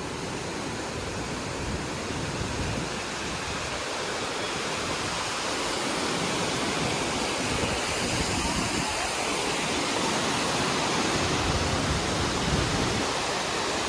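Seven Sisters waterfall: a steady, even rush of falling water.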